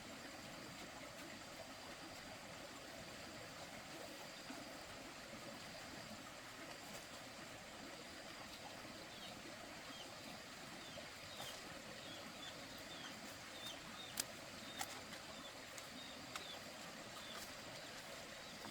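Faint steady outdoor hiss, with a run of short, high, falling chirps from small birds through the middle and a few sharp clicks.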